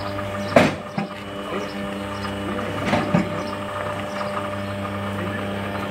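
Hydraulic power unit of a cattle hoof-trimming crush humming steadily. A sharp knock comes about half a second in, a lighter one just after, and another knock around three seconds in as the crush is worked.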